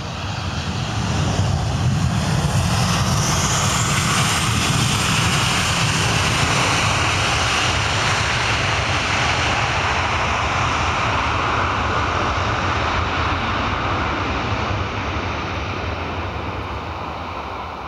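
Jet engines of an Airbus A320 running up to reverse thrust on the landing rollout just after touchdown. The roar swells about a second in, holds loud, then slowly eases in the last few seconds as the engines spool down and the aircraft slows.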